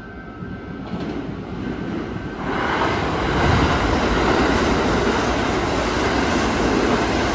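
Kintetsu electric train passing close by. Its running noise builds over the first two seconds or so, then stays loud and steady as the cars go past.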